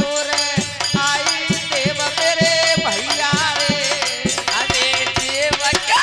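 Hindi devotional bhajan: a male voice sings a wavering melody, holding one long note through the middle, over steady drum beats and jingling hand percussion.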